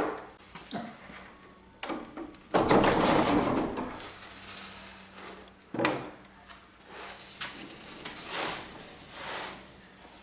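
Sliding barn door on steel rolling barn door hardware, handled with knocks and clicks. About two and a half seconds in there is a louder rolling rumble lasting about a second and a half, which fits the door being run along its track.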